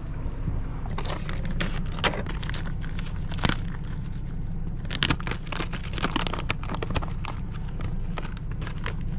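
Fishing tackle being handled aboard a small boat: irregular clicks, knocks and plastic crinkling over a steady low hum.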